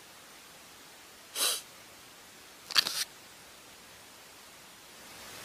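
A young woman sniffing back tears: a sharp sniff about a second and a half in, and another near the three-second mark that starts with a click, over a faint steady hiss.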